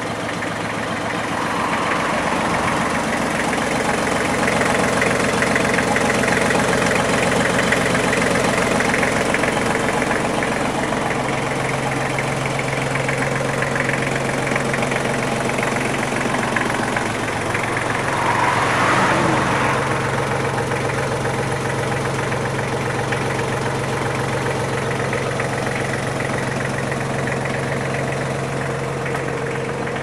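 Iseki Geas AT33 tractor's diesel engine idling steadily at about 1,000 rpm.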